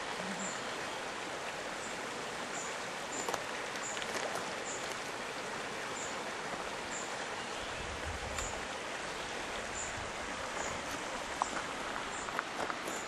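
River Tees running over rocks below, a steady rush of water, with a faint high chirp repeating every second or so.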